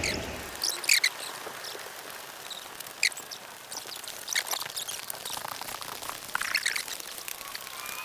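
Small birds chirping in short, scattered calls over a steady hiss of moving air or water.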